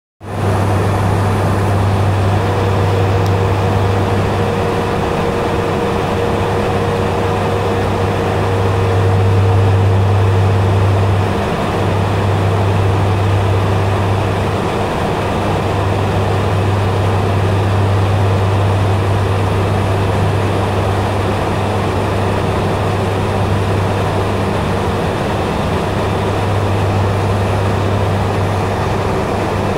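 Cabin drone of a BAe ATP's twin turboprops and six-bladed propellers in cruise descent, heard inside the cockpit. It is a loud, steady low hum that swells and fades slowly, over a broad engine and airflow noise.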